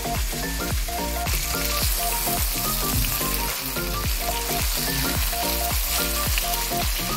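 Flour-coated chicken thighs sizzling as they fry in vegetable oil in a pan. The sizzle grows louder about a second in. Background music of short, repeated notes plays underneath.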